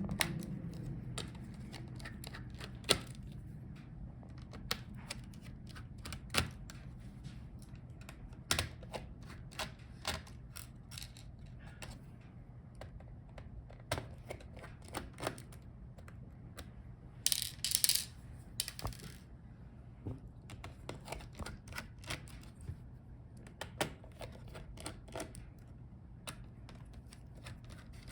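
Irregular small clicks and taps of a screwdriver and tiny screws as the screws holding a laptop's motherboard are taken out and set down, with a brief scraping rustle about two-thirds of the way through.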